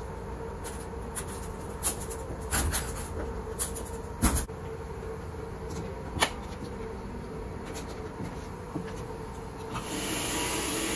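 Scattered knocks and clanks as large stainless-steel lint filter cones from a laundry dryer are handled and set down, over a steady machinery hum. Near the end a canister vacuum cleaner switches on with a steady rushing sound.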